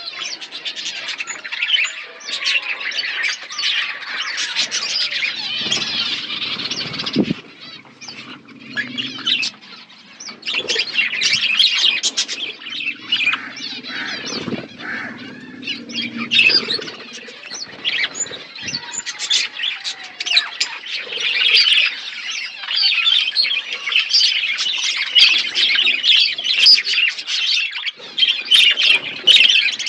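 A flock of budgerigars chattering and chirping non-stop in a dense mass of overlapping calls, easing briefly about a quarter of the way through before picking up again.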